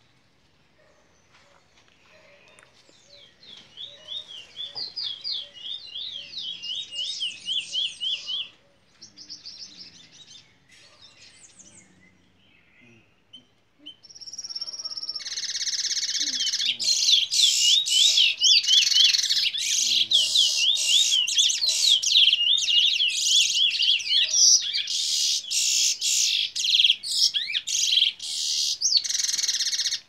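Red-factor canary × red siskin mule singing rapid, repeated high trilled phrases, a bullfinch-style song roll. The song breaks off near the middle, then returns louder over a steady hiss to the end.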